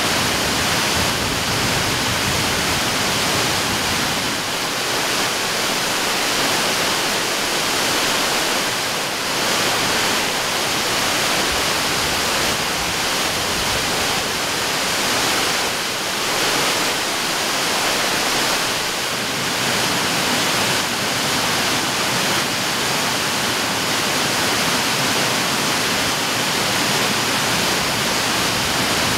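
Cascading waterfall pouring down stepped rock ledges: a steady, unbroken rush of falling water.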